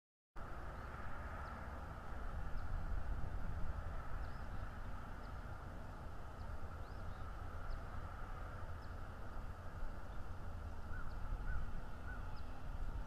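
Outdoor ambience from an eagle nest cam's microphone: steady wind rumble and background hiss, with short high bird chirps about once a second. The sound comes in suddenly just after the start.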